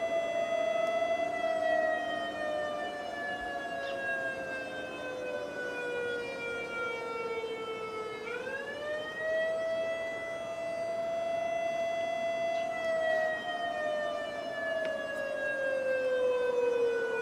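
Warning siren wailing in a slow cycle. The pitch slides gradually down for several seconds, sweeps quickly back up about eight seconds in, holds, then slides down again.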